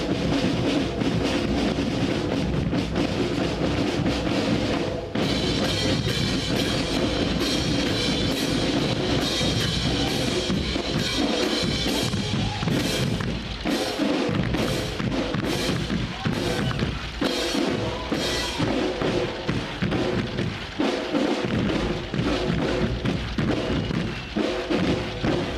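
Military marching band of snare drums, bass drums, cymbals and brass playing. A bright cymbal layer joins about five seconds in, and a run of sharp accents comes in the middle.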